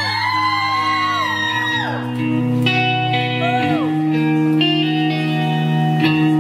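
Live rock band playing the instrumental intro of a song, electric guitar and keyboard holding chords that change every second or two. A few shrill, arching cries rise and fall over the music in the first two seconds, with one more shortly after the middle.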